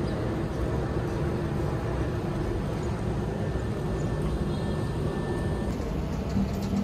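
Steady low rumble of motor-vehicle noise, even in level throughout.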